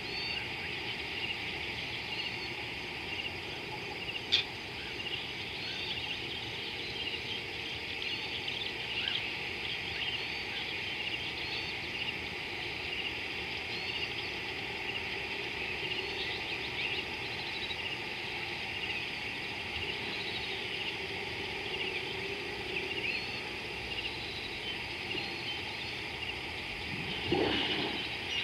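Steady dusk chorus of birds and insects: a dense, unbroken layer of small chirps and trills. There is one sharp click about four seconds in. Near the end a flock of guineafowl breaks into loud, rapid cackling calls.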